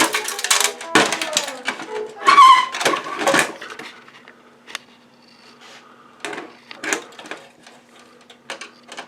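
Clicks and rattles of cable plugs and metal and plastic parts being handled inside a desktop computer case while it is taken apart, busy at first, with a brief squeak about two and a half seconds in, then sparser, fainter clicks.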